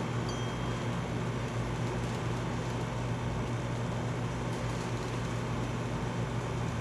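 Steady low machine hum with an even hiss over it, unchanging throughout.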